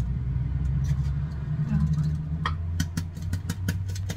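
A low, steady engine-like rumble, with several light clicks and taps of a metal hand-held flour sifter in the second half.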